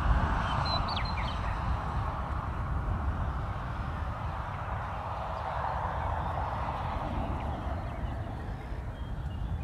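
Wind buffeting the microphone and rushing over open grassland, a steady rumbling hiss that swells and eases. A brief high bird chirp about a second in.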